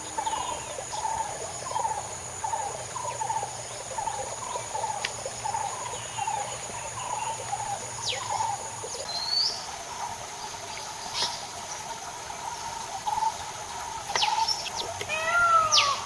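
Outdoor ambience of wild birds and insects: a steady high-pitched insect drone, a run of short calls repeating about twice a second through the first half, and several arching bird chirps near the end.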